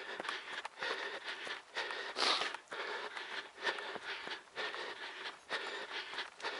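A trail runner breathing hard in rhythmic pants, about two breaths a second, close to the body-worn microphone.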